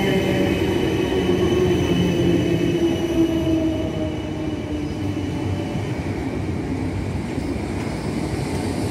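South Western Railway Class 455 electric multiple unit moving past along the platform: a steady rumble of wheels on rail with a set of steady motor tones, easing slightly about halfway through.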